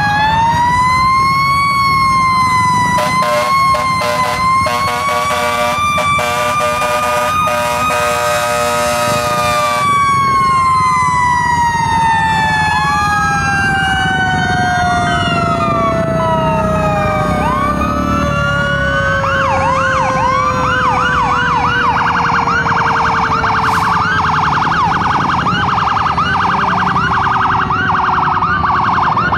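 Fire truck sirens sounding together. One long wail peaks and then slowly falls in pitch over most of the stretch, with other wailing sirens overlapping it and a rapid pulsing from about three to ten seconds in. A fast yelp starts about two-thirds of the way through.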